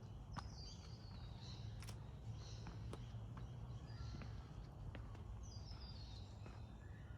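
Birds calling, with a run of high notes stepping downward about half a second in and again near six seconds, over a steady low rumble and a few sharp clicks.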